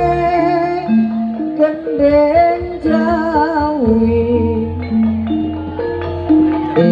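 Javanese jaranan (kuda kepang) ensemble music: a wavering melody line over held, stepping notes and steady drum strokes.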